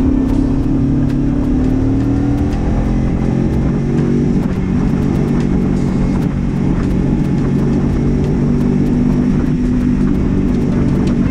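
Motorcycle engine running at road speed, heard from on the bike with wind and road noise; its pitch eases down slightly in the first couple of seconds, holds steady, and climbs a little near the end.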